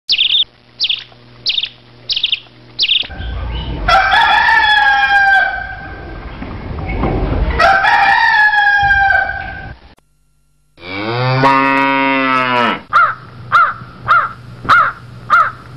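Village farmyard sound effects: a small bird chirps about five times, a rooster crows twice, a cow moos once, then a crow caws over and over, about one and a half calls a second.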